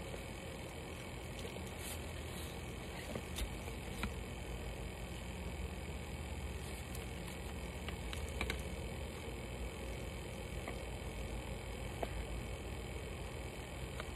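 Steady low hum with a few faint clicks and rustles from a phone box and its paper inserts being handled.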